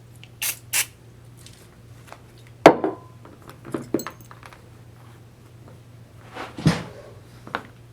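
Small metal parts and hand tools clicking and clinking as a ratchet head is being taken apart: a scatter of short, sharp clicks, the loudest one a little under three seconds in and a small cluster near the end.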